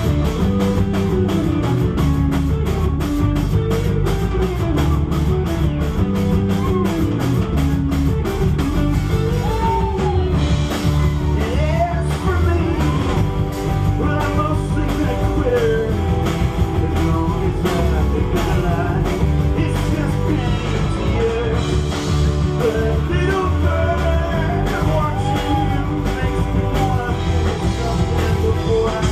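A live rock band playing a song, with a steady drum beat, bass and guitar, and a voice singing over it.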